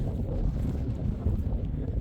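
Wind buffeting the microphone: a steady, noisy low rumble.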